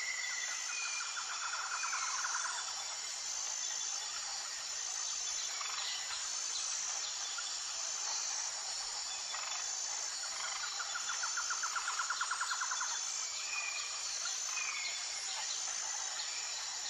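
Crickets chirping steadily with a high pulsing tone, joined by two rapid trills of a couple of seconds each, one near the start and one about ten seconds in, and a few short chirps.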